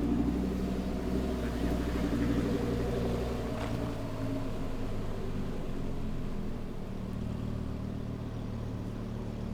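Nissan GT-R engine running at low revs as the car moves off: a steady low rumble, loudest in the first three or four seconds, then settling.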